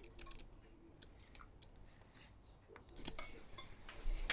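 Faint, irregular light clicks and taps of tableware being handled, a few louder ones near the end.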